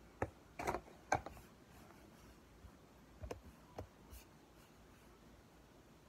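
A mouthful of Price Rite cornstarch being eaten, giving sharp crunching clicks. There is a cluster in the first second or so and a few more about three to four seconds in.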